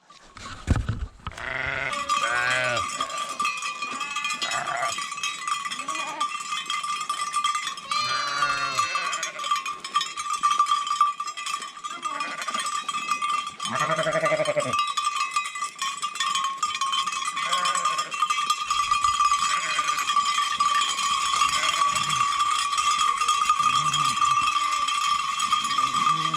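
Many sheep bells clanging together without a break as a belled flock of sheep moves along. Sheep bleat a few times over the bells, most clearly around 2, 8 and 14 seconds in.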